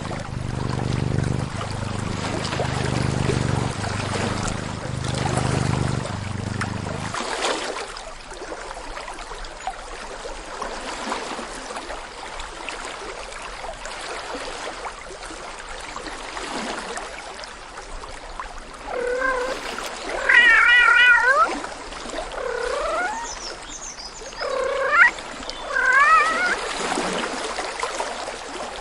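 Cat meowing several times, in short wavering calls, over a steady trickle of running water. A low pulsing hum runs under the first seven seconds and then stops abruptly.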